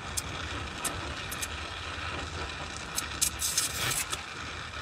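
Stick (arc) welding: a steady crackling hiss from the electrode arc, with a few sharper snaps a little after the middle and a low hum underneath.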